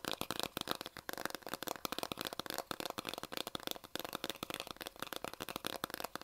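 Fingers tapping and scratching quickly on a plastic contact lens solution bottle, a dense run of small clicks and taps.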